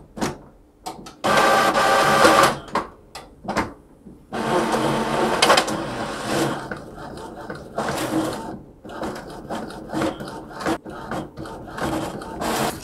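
Epson EcoTank ET-4760 inkjet printer printing a nozzle check pattern: its motors whir in runs of one to two seconds, with clicks and quieter passes between, as the sheet is fed through.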